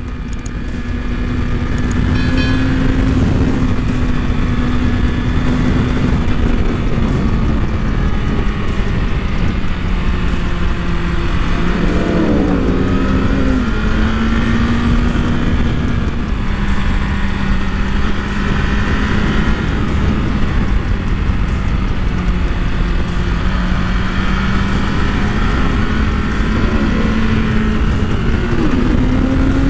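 Sport motorcycle engine running at road speed, heard from on board with heavy wind and road rush; its pitch dips and climbs a few times, with a wavering rise about twelve seconds in.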